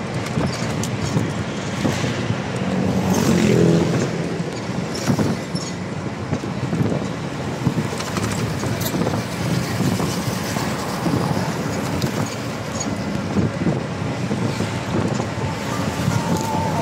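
A moving vehicle's engine and road noise, steady throughout, with wind blowing across the open sides and swelling louder about three seconds in.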